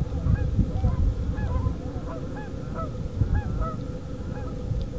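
A flock of tundra swans calling as they fly over: many short, overlapping arched calls, several a second, over a low rumble.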